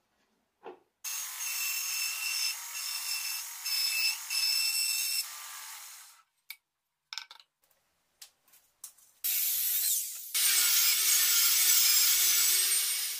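Homemade plywood mini band saw running and cutting plywood, a steady noise with a high whine, fading out after about five seconds. A few scattered clicks follow, then a table saw cutting through a plywood sheet, a loud steady noise with a low hum, for the last few seconds.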